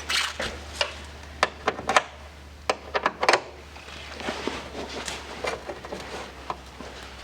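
Sharp metallic clicks and clinks, about ten in the first three and a half seconds and fainter handling noise after, from working a hand pop-rivet gun and rivet against a sheet-metal tab. A steady low hum runs underneath.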